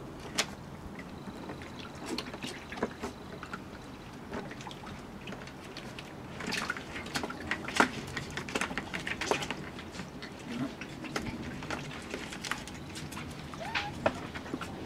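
Puppies scrambling about in a hard plastic paddling pool: claws scratching and paws knocking on the plastic in irregular clicks and scrapes, busiest in the middle.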